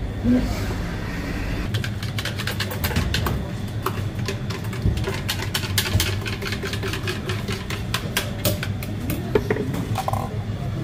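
Quick, irregular clicks and taps of utensils and plastic cups being handled at a counter, over a steady low hum.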